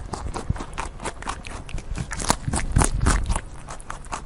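Eurasian red squirrel biting and chewing seeds taken from a hand: a rapid run of small crisp crunches and clicks, with a few sharper cracks in the middle.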